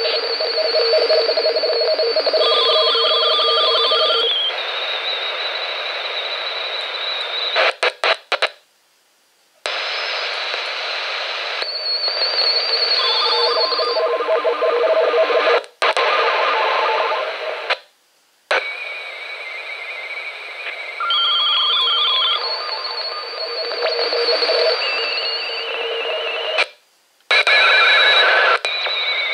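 Intek H-520 handheld CB radio receiving on 28.100 MHz AM. Its speaker plays static hiss with several steady beeping tones at different pitches, keyed on and off in a morse-like pattern. The signal cuts out to silence a few times for a second or so. It is an unidentified signal that the uploader guesses may come from a satellite.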